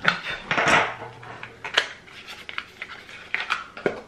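Skincare product packaging being handled and opened by hand: a series of sharp clicks and taps, with a short crinkling rustle about half a second in.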